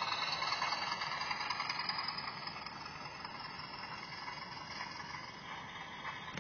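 Model railway freight train passing close by: the wagons' wheels rolling along the track, with the locomotive's motor fading away over the first few seconds and the rolling then going on steadily at a lower level.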